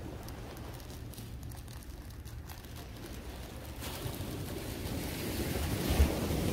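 Small surf on a sandy beach: waves washing in, one swelling from about four seconds in and breaking just before the end. A steady low rumble of wind on the microphone runs underneath.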